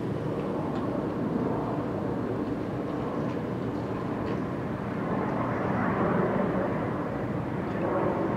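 AIDAmar cruise ship's engines running as it manoeuvres slowly: a steady low mechanical drone that grows a little louder in the second half.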